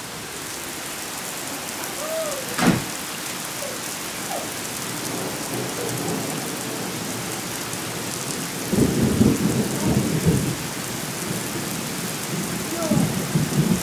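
Heavy rain pouring steadily. A low rumble of thunder lasts about two seconds from around nine seconds in, and a shorter one comes near the end. A single sharp knock sounds a little under three seconds in.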